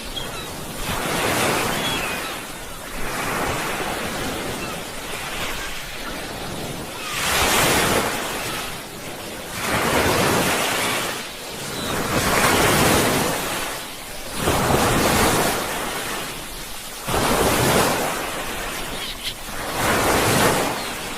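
Sea waves breaking on the shore: a continuous rushing wash that surges and recedes about every two and a half seconds.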